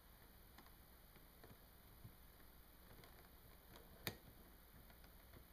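Faint, sparse clicks and small scrapes of metal tweezers prying at the plastic center cap of a 7x7 speed cube, with one sharper click about four seconds in.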